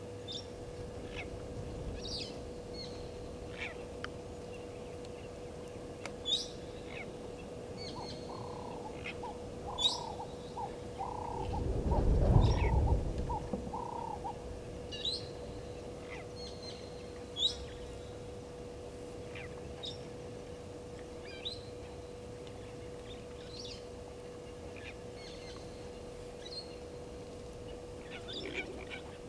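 Wild birds chirping and calling on and off, short high notes scattered throughout, over a steady faint hum. A run of about eight short, lower calls comes near the middle, with a brief loud low rumble of noise under them.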